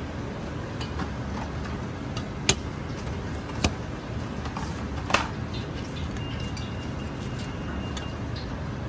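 Chinese cleaver cutting a red bell pepper on a plastic cutting board: three sharp knocks of the blade on the board, about two and a half, three and a half and five seconds in, over a steady low background hum.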